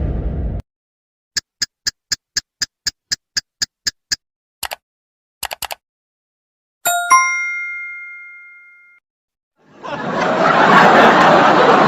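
A string of stock sound effects. About a dozen quick, evenly spaced high beeps come first, then a few clicks, then a single bright ding that rings out and fades over about two seconds. Near the end, a crowd's chatter fades in.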